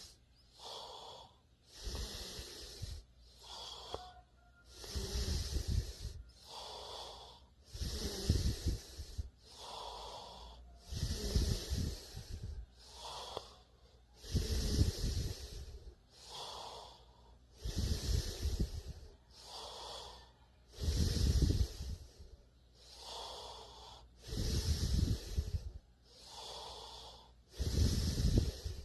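A sleeping person snoring steadily: a loud, low, rough snore alternates with a softer breath, one cycle about every three seconds.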